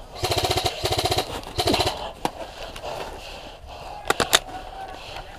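Airsoft rifle firing three short full-auto bursts in quick succession, then a few sharp snaps of shots or BB hits about four seconds in.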